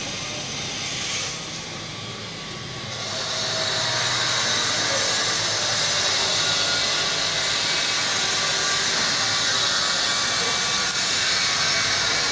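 A steady hissing noise that grows louder about three seconds in and then holds steady.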